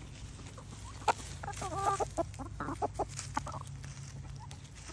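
Chickens clucking: a run of short clucks and a brief wavering call between about one and a half and three and a half seconds in, after a single sharp click about a second in.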